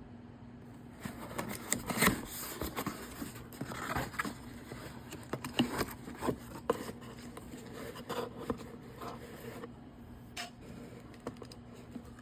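Hands handling and opening packaging: a run of scratching, scraping and small clicks, busiest in the first part and thinning out toward the end, over a faint steady hum.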